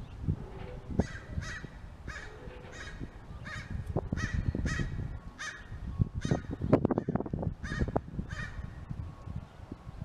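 A crow cawing over and over, about a dozen short harsh caws roughly two a second, over low rumbling and a few thumps.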